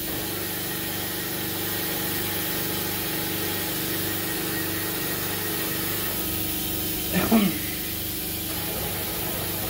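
Steady mechanical hum of a cylinder boring machine's motor running, several constant tones at an even level, with no cutting bursts or changes.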